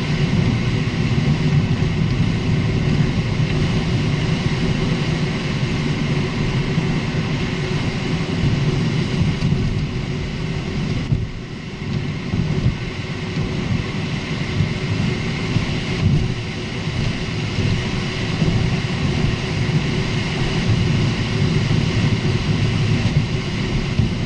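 A Lexus IS250 (GSE20) being driven: steady road, tyre and engine noise, easing briefly about eleven seconds in.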